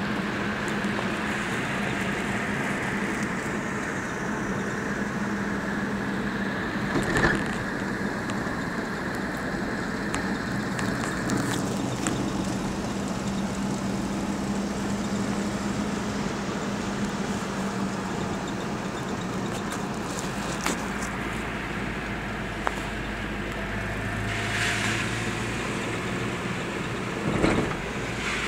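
Steady engine hum and road noise heard from inside a moving vehicle's cabin, with a couple of brief knocks or rattles, one about seven seconds in and one near the end.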